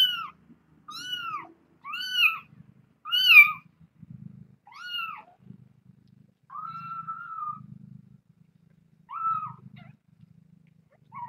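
A young kitten meowing repeatedly in high, arching cries, about once a second at first, then one longer drawn-out cry and a couple more spaced apart: a kitten crying while being held and handled away from its mother. A soft low rumble comes and goes underneath.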